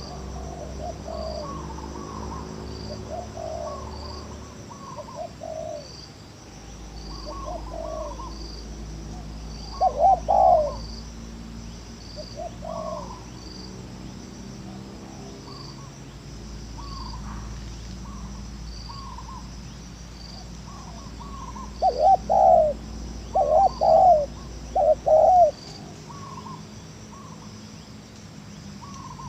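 Spotted dove cooing in short repeated phrases, with a run of louder calls near the end. An insect chirps steadily in the background, about one chirp every two-thirds of a second.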